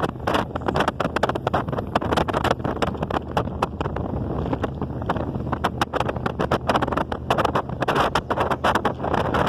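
A motor running steadily with wind on the microphone, crossed by many quick, irregular knocks or rattles.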